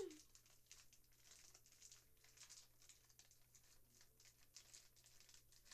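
Faint crinkling and rustling of plastic toy packaging being worked at to tear it open, with scattered small crackles.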